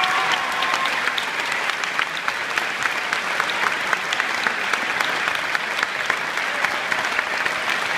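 Theatre audience applauding steadily, a dense, even clapping with single claps close by standing out sharply.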